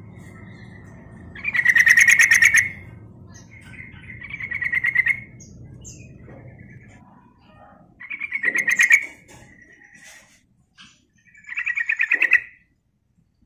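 Yellow-vented bulbul (trucukan) singing: four loud phrases of rapid chattering notes, each about a second long and a few seconds apart, with softer single notes between them.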